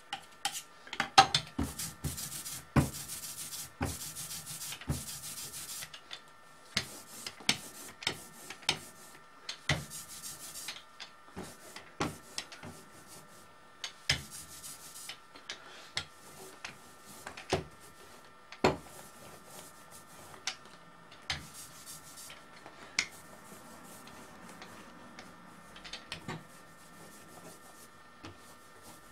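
Printing ink being worked into an engraved copper plate with a hand tool: spells of scratchy rubbing strokes mixed with irregular sharp knocks and taps, the rubbing heaviest in the first few seconds and thinning out toward the end.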